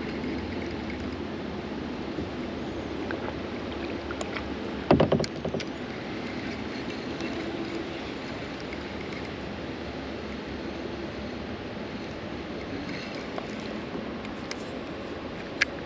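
Steady wind rushing on an action camera's microphone aboard a kayak, with a short sharp knock about five seconds in and a single click near the end.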